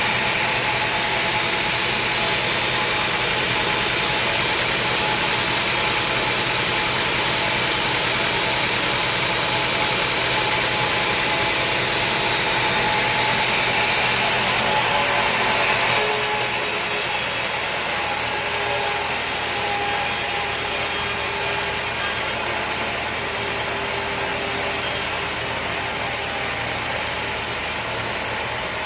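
Sawmill machinery running steadily: a dense mechanical rattle and hiss of saw and log-handling gear at work, changing abruptly about halfway through.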